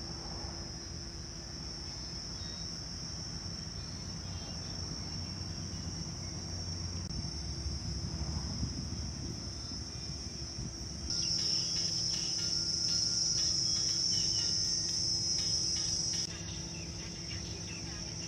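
Insects buzzing steadily in a high, even drone, growing clearly louder for about five seconds in the middle before dropping back. A steady low hum runs underneath.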